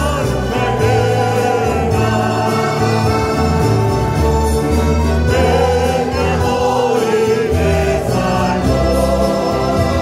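Small church choir singing a Spanish hymn, accompanied by acoustic guitars and accordion over a steady bass line.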